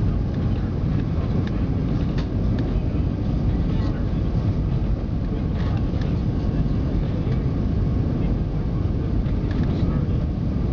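Steady low roar inside the rear cabin of an Airbus A320 on approach: the engines and the rush of air along the fuselage, unchanging in level, with a few faint clicks.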